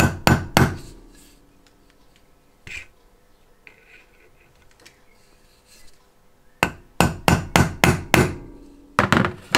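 A small hammer striking a hand-held punch on a metal bearing block, marking hole positions for drilling and tapping. The sharp metallic taps come in quick groups of three to six, with a single tap and a pause of a few seconds in the middle.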